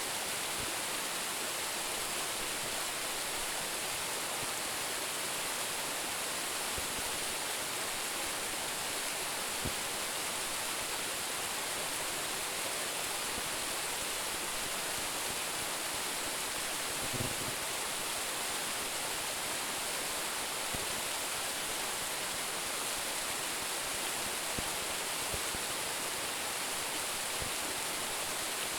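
Waterfall of about a 10 m drop, falling water making a steady, even hiss, with a few soft low thumps.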